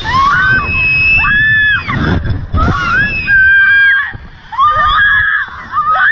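Two young women screaming on a reverse-bungee slingshot ride: a run of long, high-pitched screams one after another, each held and then falling away at its end.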